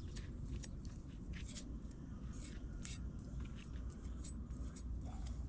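A kitchen knife handled and wiped, making scattered faint scratches and rustles over a steady low rumble.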